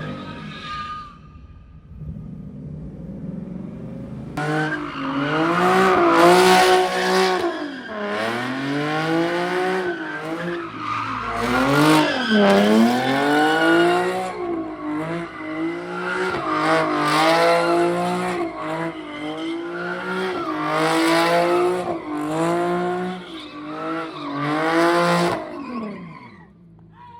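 A car engine revving hard and repeatedly, its pitch climbing, holding high and dropping back, while the tires squeal and skid as the car drifts and spins.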